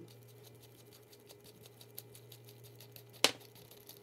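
Faint ticking and scraping as the AAC Element 2 suppressor's disassembly tool is turned by hand, pushing the baffle stack out of the tube, over a steady low hum. About three seconds in, one sharp knock as a baffle drops out onto the table.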